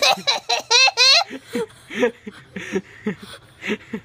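Young girl's disgusted vocal reaction: a quick run of high squeals, then a string of short, low laugh-like sounds.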